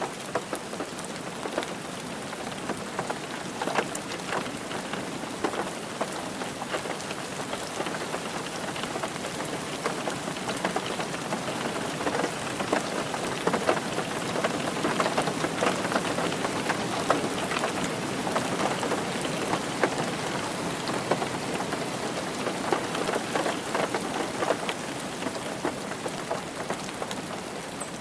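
Steady rain on a car roof: a dense patter of countless drop hits with sharper individual ticks, growing slightly heavier in the middle.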